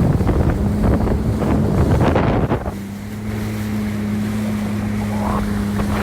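Jet ski engine running under heavy wind and water noise on the microphone. About two and a half seconds in, the wind noise drops away, leaving the engine's steady hum.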